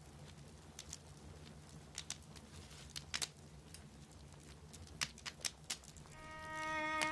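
Wood fire crackling, with scattered sharp pops. Near the end, violin music comes in and grows louder.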